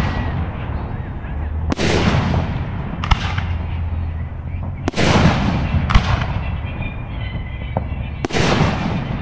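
Aerial firework shells bursting in the sky: five sharp booms a second or two apart, each followed by a fading crackle.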